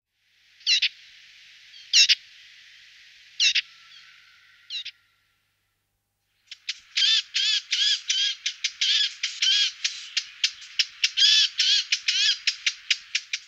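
Eurasian blackcap calling: four short, sharp calls about a second and a half apart over a faint hiss, then, after a brief pause, a fast run of short calls at about four a second.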